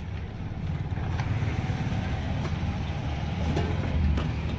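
Low rumble of a motor vehicle's engine passing on the street, swelling through the middle and peaking near the end, with a few light clinks of steel plates and utensils.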